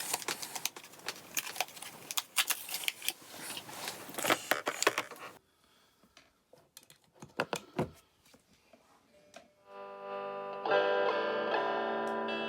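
About five seconds of clicking and rattling as the pedal is handled and the battery and cables are fitted. After a short quiet stretch with a few knocks, an electric guitar chord rings out through the Ibanez TS9 Tube Screamer overdrive pedal under test near the end.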